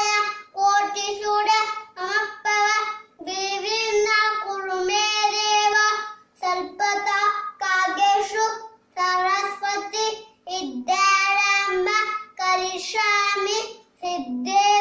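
A young boy singing a prayer solo, unaccompanied, in short phrases with held notes and brief breaks for breath.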